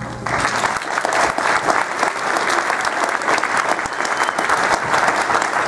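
Audience applause: dense clapping that breaks out a moment after a song ends.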